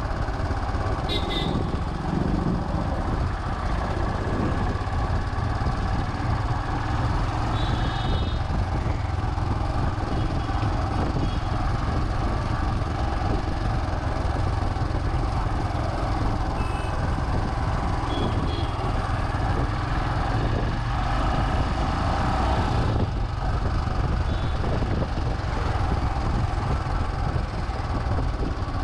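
Royal Enfield Himalayan's single-cylinder engine running steadily while riding slowly through city traffic, picked up by a chest-mounted action camera's built-in microphone. A few short high beeps sound now and then over it.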